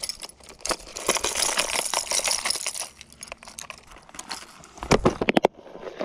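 Hard-bodied fishing lures and their treble hooks clinking and rattling against each other and the compartments of a clear plastic tackle box as it is rummaged through. A quick run of sharp plastic clicks comes about five seconds in, as the box's lid is snapped shut.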